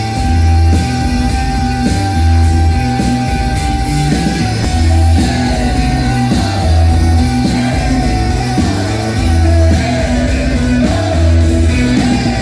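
A song with singing and a heavy bass line played loud through the Sony SA-D100 4.1 home theatre's speakers and subwoofer, with deep bass notes recurring every second or two.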